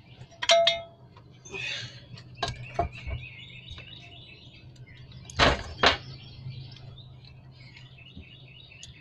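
Metal hand tools clinking and clanking as they are handled, with a few sharp knocks. The loudest two come about five and a half seconds in, and an early knock has a short ringing tone. Birds chirp steadily in the background.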